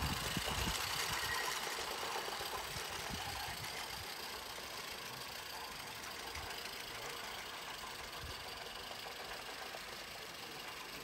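Roundhouse Tom Rolt live-steam garden-railway locomotive running with its train, a steady hiss and rattle that fades gradually as it pulls away.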